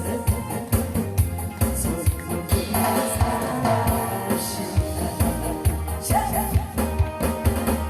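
Upbeat song with a steady drum beat and a pitched melody line over it, played loud through a sound system.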